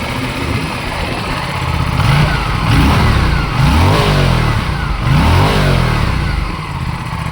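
Aprilia RS 457's 457 cc parallel-twin engine on its stock exhaust, idling, then blipped three times in quick succession with the revs rising and falling each time, and settling back to idle near the end.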